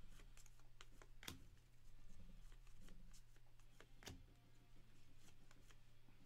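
Near silence: faint handling of trading cards, with a few soft ticks as cards are slid and flipped over, over a steady low electrical hum.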